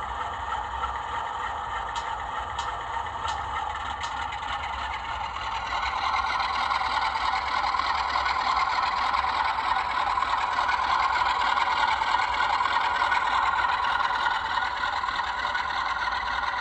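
Model railway train running on the track: a steady whirring of its small electric motor and wheels on the rails, with four light clicks in the first few seconds, growing louder about six seconds in.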